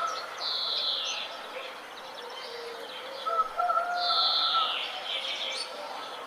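Several birds calling together in a morning chorus. One bird repeats a loud call that falls in pitch, about half a second in and again about four seconds in, over steadier chirps and lower held notes.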